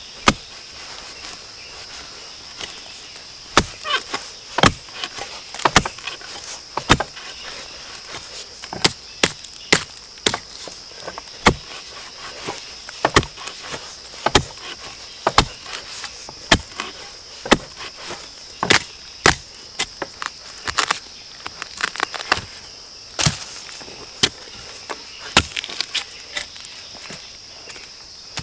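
Repeated chopping strikes, irregular and about one or two a second, as bamboo shoots are hacked out by hand, over a steady high-pitched insect drone.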